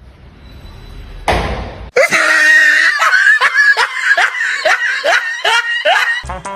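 A person's loud, high-pitched laughter in quick squealing bursts, about three a second, starting about two seconds in after a short breathy gasp.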